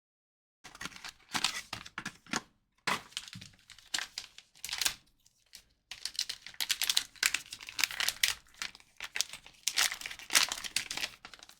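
Trading-card pack wrappers being torn open and crinkled by hand, in irregular bursts of crackling and rustling with short pauses between them.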